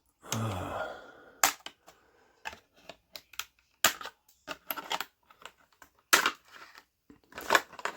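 Irregular sharp clicks and snaps of a plastic packaging tray as a toy action figure and its weapon are pried loose, with short pauses between them.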